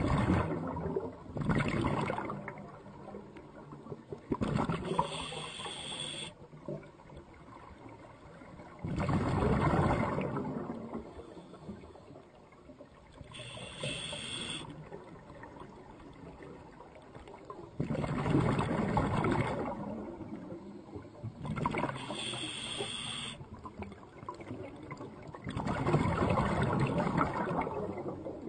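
Water noise rising and falling in repeated swells every few seconds, some swells carrying a higher hiss.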